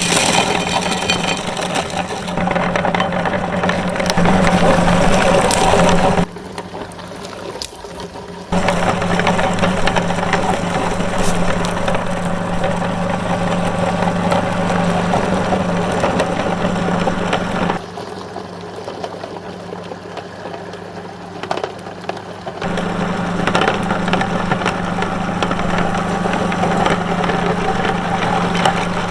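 Electric meat grinder running with a steady motor hum and grinding noise. The sound drops to a quieter level twice, for a few seconds each time.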